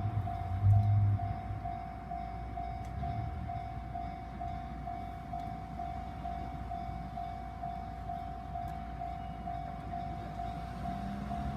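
Japanese railway level-crossing warning bell ringing steadily at about two strikes a second. Under it, the low rumble of a train dies away in the first second or so, and a low hum comes in near the end.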